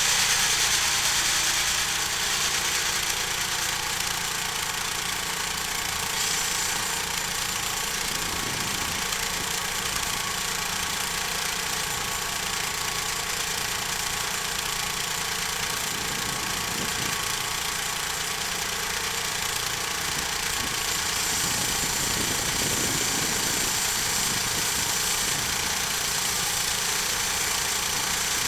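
Homemade sawmill running steadily, its engine driving the blade through a log.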